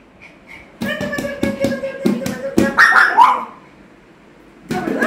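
A hand drumming a rhythm on a plastic canister like a tabla while a Pomeranian howls along on a held note, rising into a louder, wavering yowl about three seconds in, with a short bark near the end.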